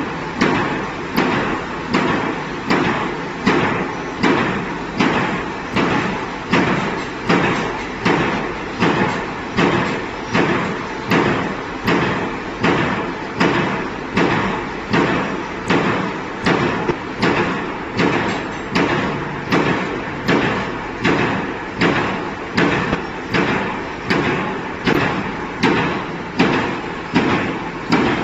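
Barbed-tape (razor wire) making machine running: its press stamps the strip in a steady rhythm, a hard hit a little more than once a second.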